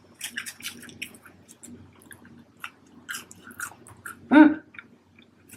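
A person chewing fries close to the microphone, with wet mouth clicks and smacks throughout and a short hummed "mm" about four seconds in.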